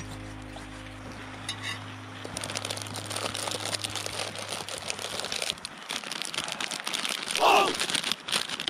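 Background music fading out, then crinkling and rustling of a plastic instant-ramen packet being handled and opened, with a short, louder pitched sound about seven and a half seconds in.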